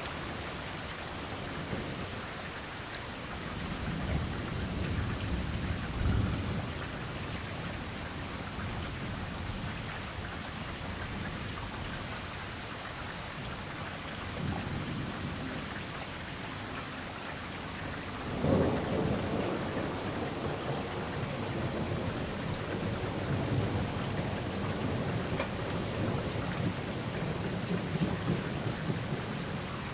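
Steady rain falling, with thunder rolling in: a rumble swelling about four to six seconds in, a softer one near the middle, and a sharper clap about eighteen seconds in followed by long rolling rumble.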